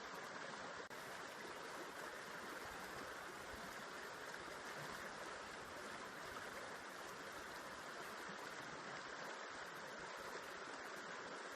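River water flowing steadily, an even rush of water without change, with a split-second drop in level about a second in.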